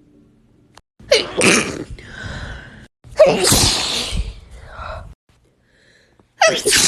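A person sneezing three times, a couple of seconds apart; each sneeze is a sudden loud burst that trails off in a breathy tail, and the third comes near the end.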